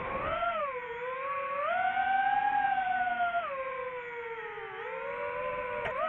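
DJI FPV drone's motors and propellers whining as it lifts off and climbs. The pitch shoots up at takeoff, then rises and falls with the throttle.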